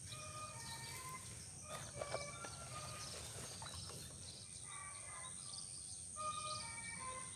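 Faint outdoor ambience: a steady high-pitched insect drone, with scattered short, clear notes at several pitches.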